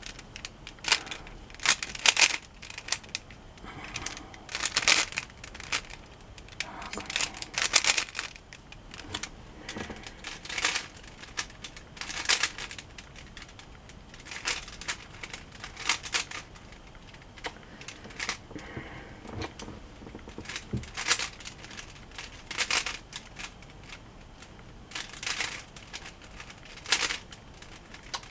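A plastic Rubik's cube being turned by hand: quick clicking, rattling layer turns at irregular intervals, some in close runs, with short pauses between.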